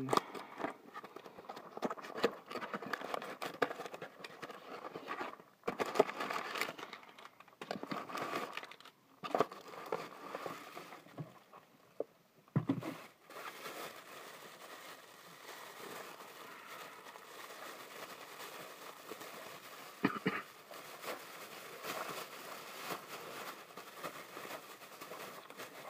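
A mail package being opened by hand: packaging crinkling and tearing, with irregular clicks and scrapes, busiest in the first half and quieter, steadier rustling later.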